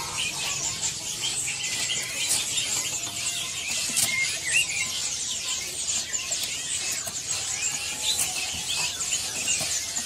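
Chorus of many caged songbirds chirping and twittering at once, a dense continuous wash of short high calls.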